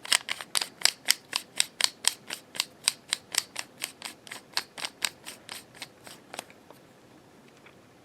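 Sharp mechanical clicks from a lightsaber hilt's crystal chamber mechanism, about four a second, growing fainter and stopping about six and a half seconds in.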